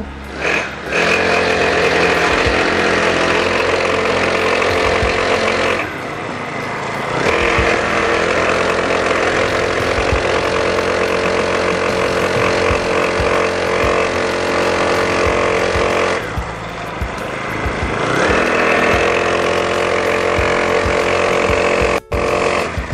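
Mini Mamba 40cc mini dirt bike's small two-stroke engine running at high revs under a rider. It eases off about six seconds in and again around sixteen seconds, then revs back up each time, and cuts off suddenly near the end.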